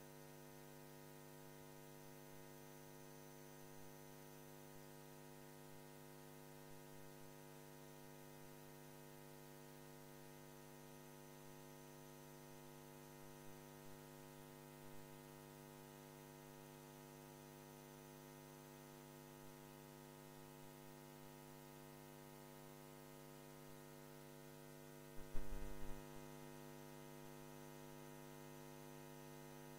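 Steady electrical mains hum, with a brief low thump near the end.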